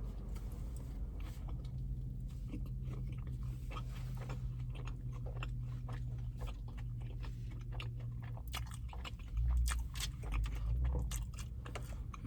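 Close-up biting and chewing of a chili cheese Fritos burrito, the corn chips crunching in quick crackles that come thickest in the last few seconds. A steady low hum runs underneath, likely the car's engine running.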